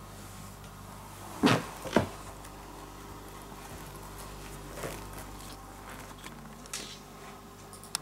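Two sharp knocks about half a second apart, then a few fainter taps, over a steady low hum.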